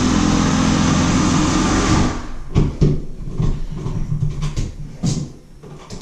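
A steady machine-like hum with a low drone that cuts off abruptly about two seconds in, followed by scattered small clicks and scrapes of a screwdriver and metal cover plate being worked loose from a wall outlet.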